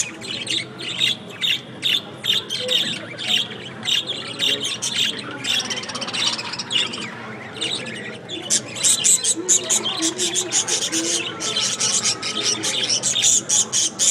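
Several budgerigars chattering: a dense, unbroken run of short chirps, squawks and warbles, busier and louder from about the middle on.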